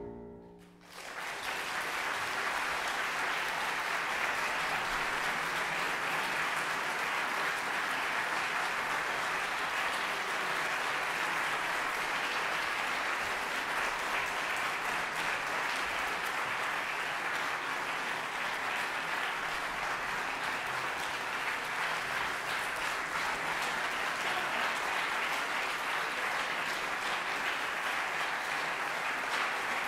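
The last notes of a grand piano fade out, and about a second in an audience breaks into steady applause.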